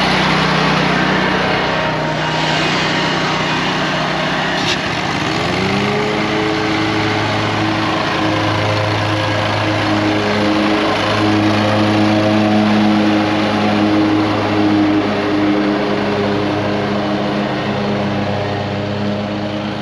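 Lawn mower engine running. About five and a half seconds in its pitch rises as it speeds up, then holds steady.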